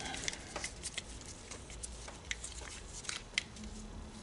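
Scattered light clicks and rattles of small parts being handled: a set of transmission shift solenoids and their wiring connector being fitted together, with one louder click about three seconds in.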